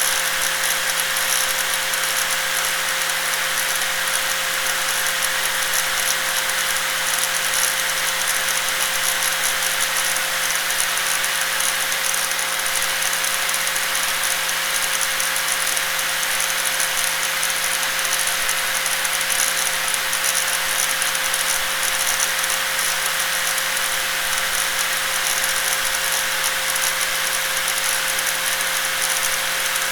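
Electric angle grinder running steadily, its motor holding one constant tone over a rattly hiss.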